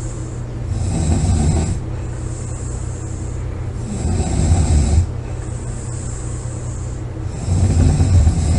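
A person snoring loudly: three deep snores about three and a half seconds apart, each lasting about a second, with a breathy hiss in the gaps between them.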